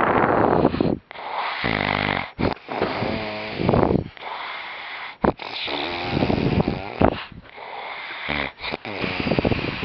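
A man doing an exaggerated, put-on snore: a fast run of loud, rattling snores and snorts, roughly one a second with brief breaks between them.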